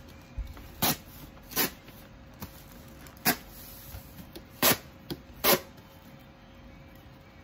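A series of about seven short knocks and rustles at irregular intervals, as of objects being handled and set down, over a faint steady hum.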